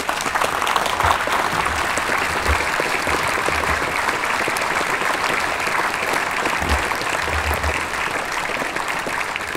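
Large crowd applauding: a dense, steady clatter of many hands clapping.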